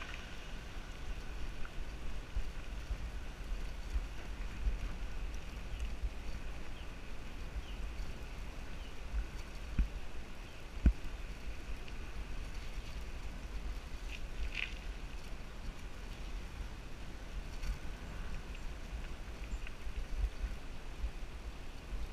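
Wind buffeting a bicycle-mounted GoPro's microphone while riding along a paved lane: a steady, fluttering low rumble, with two knocks about ten and eleven seconds in.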